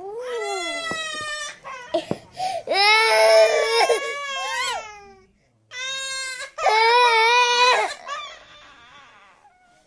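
A cartoon child character crying: three long, high wailing sobs, then softer, shaky whimpering that fades out near the end.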